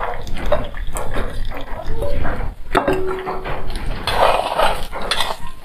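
Chayote pieces frying in hot oil with onion in a black pan, sizzling as they go in, with the clink of a plate against the pan and a plastic spoon scraping and stirring.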